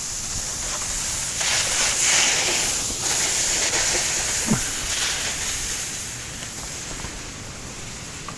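Plastic sled sliding over packed snow, a hiss that swells as it passes close by and fades as it moves off down the hill.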